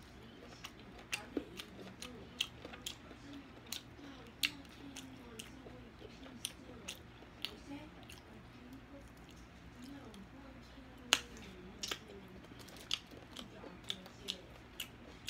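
Close-miked eating sounds from a woman eating saucy barbecue ribs: sharp wet smacks and clicks of the lips and tongue as she sucks sauce off her fingers and chews the meat, scattered irregularly, the loudest about 11 seconds in.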